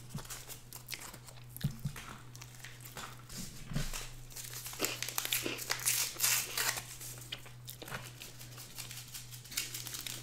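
Small paper condiment packet crinkling and being torn open by hand: a run of quick crackles, densest in the middle, over a steady low hum.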